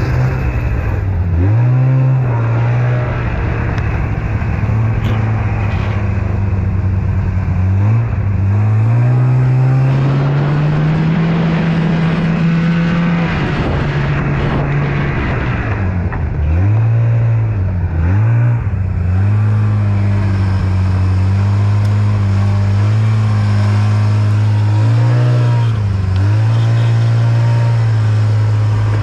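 Snowmobile engine running at a steady fast idle. Around the middle the revs rise slowly and fall back, and later there are several quick blips of the throttle.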